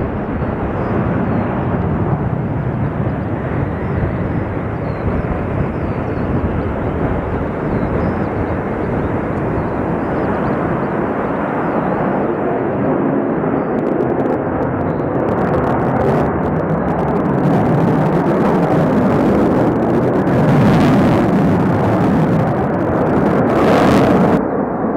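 Sukhoi Su-35 fighter jet's twin turbofan engines running at high power through a takeoff and flypast: a continuous dense rushing roar that grows louder near the end as the jet manoeuvres overhead.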